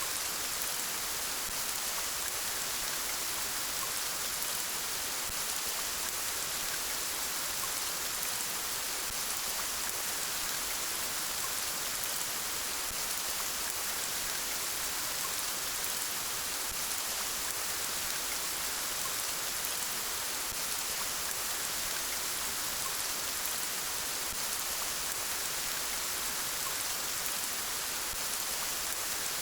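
Steady rain falling, an even hiss of many drops on a surface.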